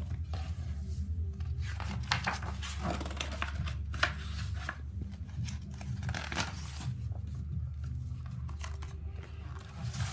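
Pages of a hardback picture book being handled and turned, paper rustling and brushing in short scattered bursts over a low steady hum.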